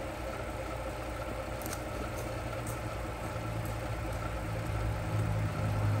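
A 2005 Chrysler 300's engine idling steadily, a low hum that grows a little louder near the end, with a few faint ticks.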